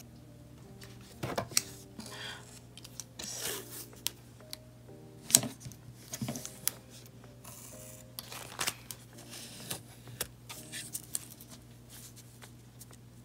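Washi tape being pulled off its roll and pressed onto a paper binder insert: scattered rustling with several sharp tearing and crinkling sounds, the sharpest about five seconds in. Soft background music plays under it.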